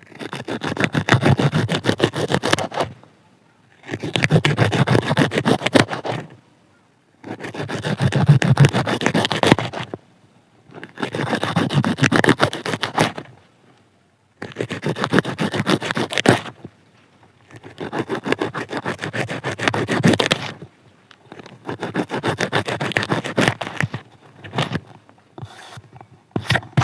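Radish leaves being cut, a crisp 'khinch khinch' crunching: a fast run of snipping crunches in each of about seven bursts of two to three seconds, with short pauses between them and shorter bursts near the end.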